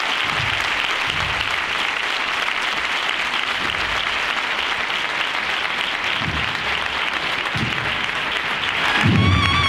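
Large audience applauding steadily, with a few soft low thumps. About nine seconds in, a brass band strikes up.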